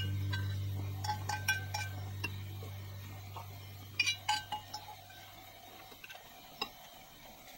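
Metal fork clinking and scraping against a cast-iron pan while scrambled egg is scraped off onto a plate: scattered sharp clinks, with a quick run of them about four seconds in. A low held tone fades away beneath them over the first six seconds.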